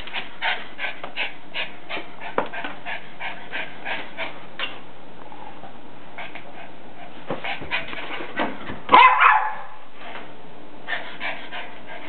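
Norwich terrier vocalising in play: short quick sounds about three a second, with a louder pair of barks about nine seconds in.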